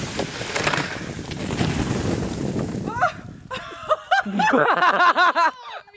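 A mass of snow sliding off a roof and landing with a rushing sound for about three seconds as a man comes down with it. Then a person laughing loudly in rapid bursts.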